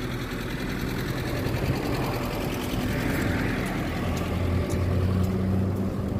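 A motor vehicle's engine running close by, a steady low hum that gets louder in the second half, over street noise.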